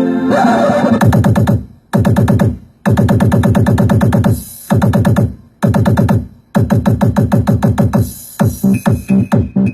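Electronic dance music played as a bass sound-test track: a rapid stuttering synth-bass and drum-machine pulse, cut by brief breaks every second or so. Near the end it changes to a faster run of separate beats with a high synth tone on top.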